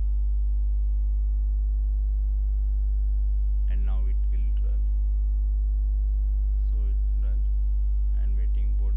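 Steady electrical mains hum with a long ladder of overtones, the loudest thing throughout. A few short stretches of low, mumbled voice come in about four, seven and eight and a half seconds in.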